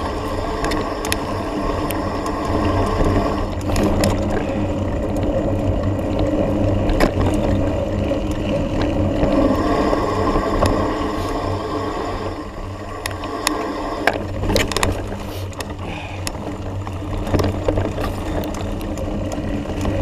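Mountain bike descending a dirt forest track: steady rumble of tyres on dirt and rattling of the bike, with many scattered sharp knocks from bumps and a low rush of wind on the microphone.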